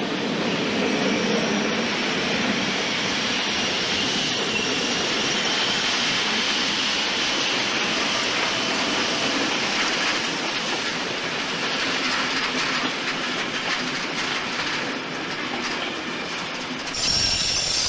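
A passenger train of DB 'Silberling' coaches rolling past, with steady wheel-on-rail noise and a faint high wheel squeal. Near the end the sound changes abruptly to a different one.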